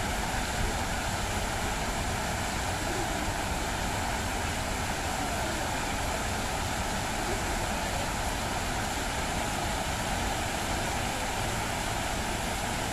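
Fountain jets splashing steadily into the pool, a constant rush of falling water.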